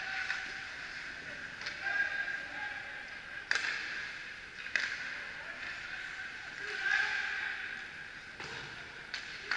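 Distant ice hockey play echoing around an indoor rink: a few sharp clacks of sticks and puck, one about a third of the way in, another a second later and two more near the end, over the steady hum of the arena.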